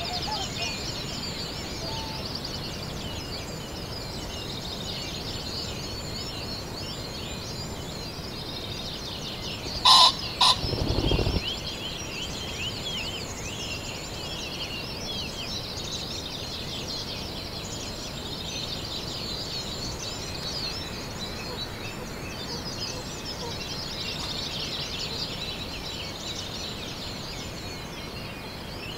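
A male common pheasant gives its loud two-note crow about ten seconds in, followed by a brief whirr of wing beats. Behind it, a steady chorus of many small songbirds chirps and sings throughout.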